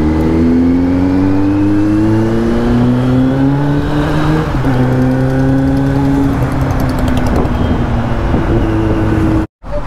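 Kawasaki Z900 inline-four with an aftermarket Arrow slip-on exhaust accelerating under way. The exhaust note climbs in pitch, drops once at an upshift about four and a half seconds in, then climbs again. The sound cuts out briefly near the end.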